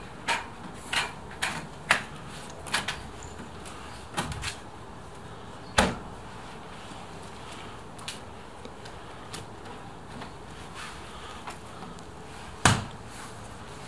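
Irregular clicks and knocks of a trim panel being handled and fitted onto a steel entry door, with two louder knocks about six seconds in and near the end.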